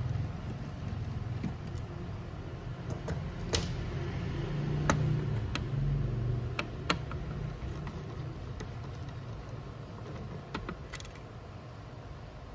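Scattered light clicks and taps as the black plastic fuser unit is handled and the screws holding its side cover are taken out with a screwdriver, over a steady low hum.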